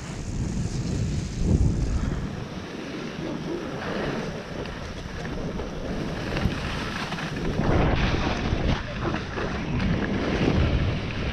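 Wind buffeting a GoPro's microphone as a skier gathers speed downhill, with skis hissing and scraping over snow. It grows louder and rougher over the last few seconds.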